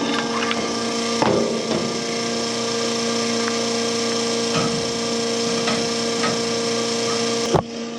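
Fuel pump running steadily with a constant hum as diesel is pumped into a combine's tank. It cuts off suddenly with a click near the end.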